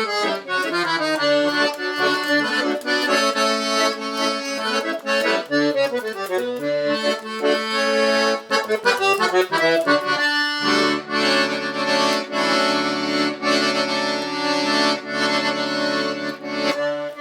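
Accordion-led instrumental passage of a gaúcho vanera, playing chords and runs over a bass line, with a brief break about ten seconds in followed by long held closing chords.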